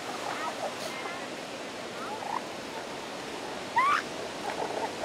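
Several short, high rising yelps from a newborn northern elephant seal pup, the loudest about four seconds in, over the steady hiss of surf on the beach.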